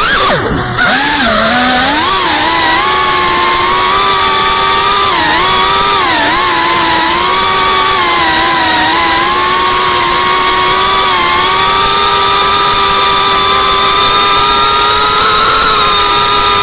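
Geprc Cinelog 35 FPV quadcopter's brushless motors and propellers whining, the pitch rising and falling as the throttle changes. Just under a second in the throttle is chopped: the whine sweeps sharply down and briefly drops away, then comes back and carries on steadily.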